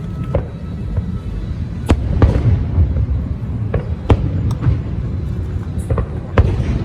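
Fireworks shells bursting: several sharp bangs spread through, over a steady low rumble, with the show's music underneath.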